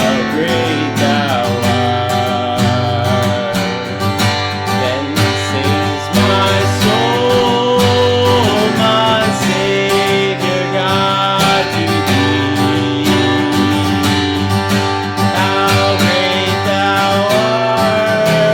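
Music led by acoustic guitar, with a melody line over a steady accompaniment.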